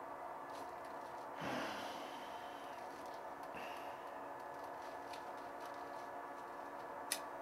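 A man's single heavy exhale through the nose, about a second and a half in, over a steady low hum of room noise. A sharp click comes near the end.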